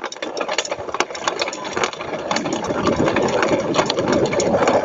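Bike rattling and rumbling over a rough dirt trail, a dense clatter that grows louder after about two seconds.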